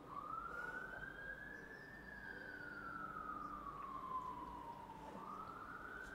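Emergency-vehicle siren wailing faintly, its pitch sliding slowly up, then down, then up again, one full rise and fall taking about five seconds. It starts suddenly.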